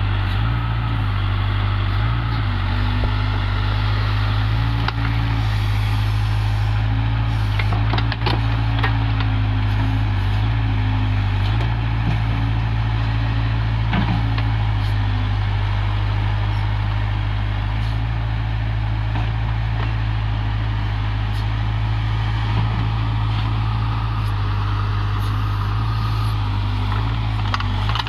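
Heavy diesel machinery engines running steadily under load, the pitch dipping and rising slightly now and then, with a few short metallic knocks.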